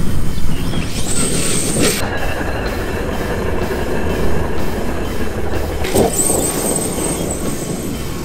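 Losi 1/5-scale electric RC buggy driving across grass: a steady motor and drivetrain whine over a low rumble, swelling as it passes close twice, about a second in and again around six seconds.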